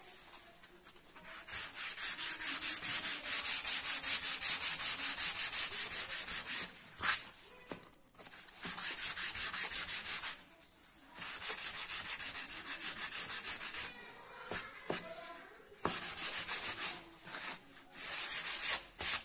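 Sandpaper block rubbed quickly back and forth over a thin XPS foam tail surface, shaping it into an airfoil: a dry, hissing scrape at about four to five strokes a second. It comes in runs with short pauses and a couple of sharp taps.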